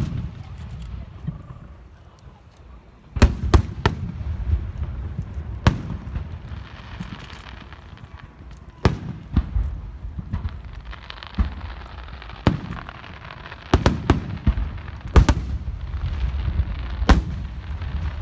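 Fireworks display: shells bursting in a dozen or so sharp bangs at irregular intervals, some in quick pairs, over a continuous low rumble. Stretches of fizzing crackle sound in the middle and toward the end.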